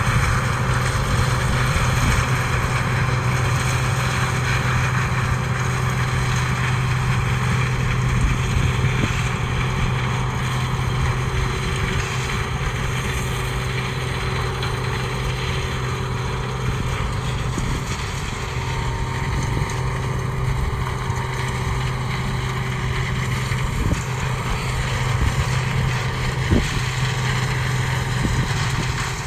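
CLAAS Mega 204 combine harvester running steadily at work, with a constant low engine hum under a broad mechanical noise and a few brief knocks in the second half.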